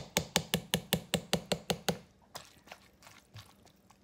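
Plastic serving spoon knocking against a glazed ceramic bowl while tossing dressed pasta salad: rapid, regular taps about six a second that stop about two seconds in, then a few faint knocks.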